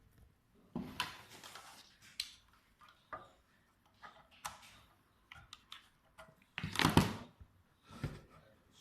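Irregular clicks, taps and knocks of hard objects being handled, with a louder clatter about seven seconds in.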